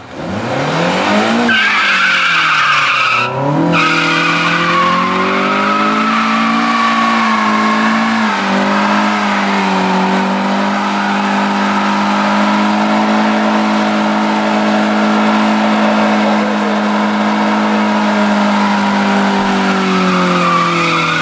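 Honda Civic wagon's four-cylinder engine revved hard in a stationary burnout, its front tyres spinning and squealing on the pavement. The revs climb sharply at the start, dip and rise again a few seconds in, then hold steady at high rpm and fall away near the end.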